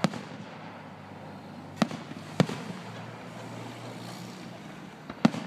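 Aerial firework shells bursting: four sharp booms, one right at the start, two about half a second apart around two seconds in, and one near the end.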